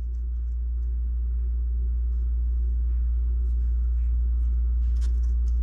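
Steady low rumble throughout, with a few faint light clicks about five seconds in.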